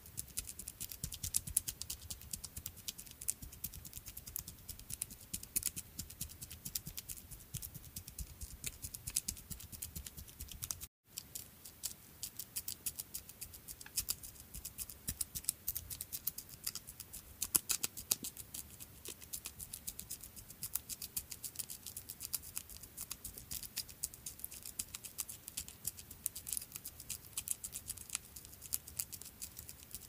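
Footsteps of a small creature: a rapid, dense pattering of tiny clicks and taps. It cuts out for an instant about eleven seconds in.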